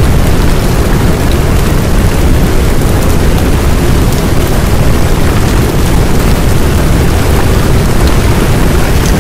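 A loud, steady rushing noise with a deep rumble underneath, unchanging throughout: a masking track of the kind laid over the hidden affirmations of a subliminal.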